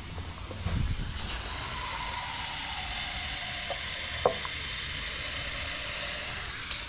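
Water from a basin tap running into an upturned plastic toilet brush holder, a steady hiss as the holder fills, with a brief tick about four seconds in.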